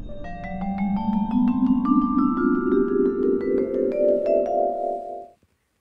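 A music cue of quick, ringing notes that climb in pitch over a slowly rising, warbling tone, cutting off suddenly about five seconds in.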